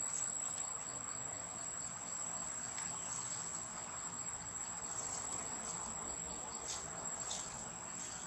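Insects droning steadily in one unbroken high-pitched tone, with a few faint ticks in the second half.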